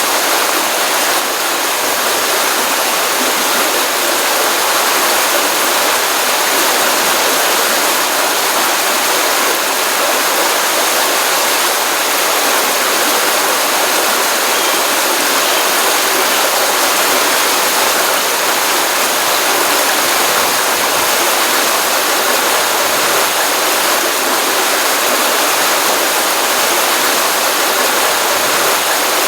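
Stream water running steadily from a pond after a rainstorm, an even rushing splash with no breaks.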